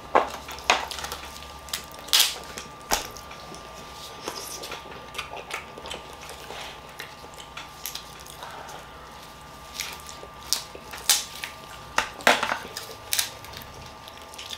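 Crab leg shells being snapped and cracked apart by hand: irregular sharp cracks and crunches, a few of them loud, scattered through the stretch.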